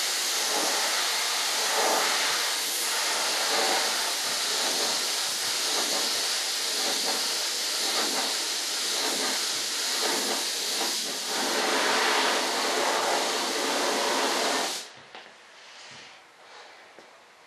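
Paint sprayer hissing steadily as camouflage green is sprayed onto a model jet, then cutting off suddenly about fifteen seconds in.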